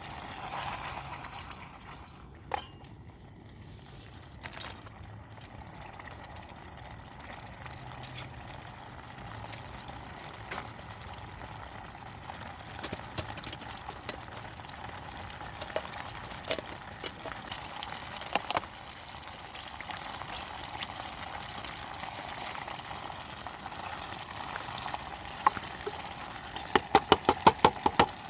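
Food bubbling steadily in a pan over a camp stove, with scattered light clicks and taps, and a quick run of sharp clicks near the end.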